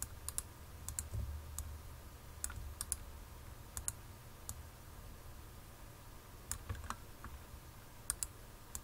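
Irregular, scattered clicks of a computer mouse and keyboard, over a low steady hum.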